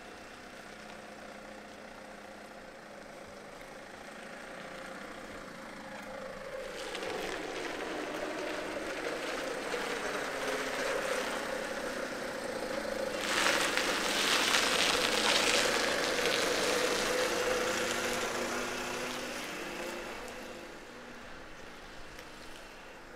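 An engine-driven vehicle passing by: its engine grows louder over several seconds, a rushing hiss joins it abruptly about halfway through, and the sound then fades away before the end.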